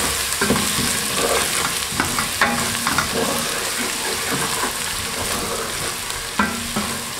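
Meat, onions, and grated ginger and garlic sizzling in hot oil in a stainless steel pot, stirred with a wooden spoon that scrapes and knocks against the pot a few times.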